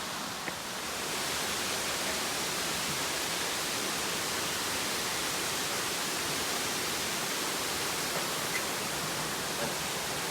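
Steady rush of falling water from a mountain waterfall cascade, growing louder about a second in and then holding even.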